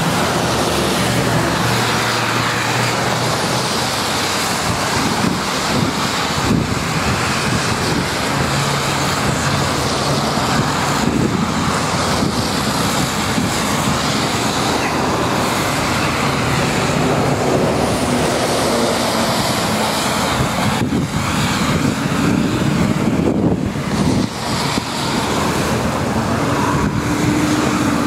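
Road traffic passing steadily on a wet, slushy city road, a continuous tyre and engine noise, with one vehicle's engine rising in pitch near the end.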